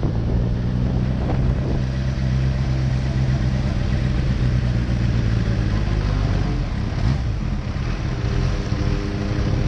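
Kawasaki Ninja H2's supercharged inline-four running at a steady, light-throttle cruise, heard from the rider's seat with wind noise on the microphone. The engine note rises briefly about two-thirds of the way in.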